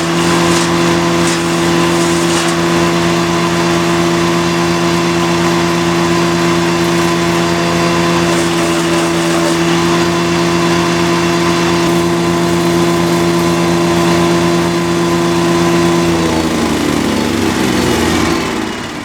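Hyundai HYCH1500E-2 wood chipper's 420cc four-stroke engine running steadily at full throttle, then switched off about 16 seconds in, its pitch falling as the engine and cutting rotor spin down to a stop.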